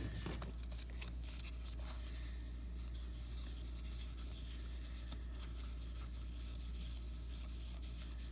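2019 Topps Heritage Minor League cardboard baseball cards sliding and rubbing against one another as a stack is fanned through by hand, with light irregular flicks, over a steady low hum.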